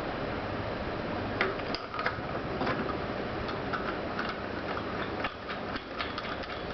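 Irregular sharp metallic clicks and ticks, a few a second, from parts of a pneumatic perfume-bottle crimping machine being handled, starting about a second and a half in, over a steady background hum.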